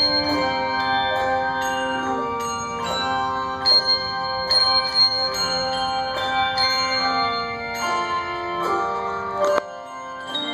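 Handbell choir playing: many bells struck in chords and runs, their tones ringing on over one another. About nine and a half seconds in, the bells are damped all at once, cutting the sound off suddenly.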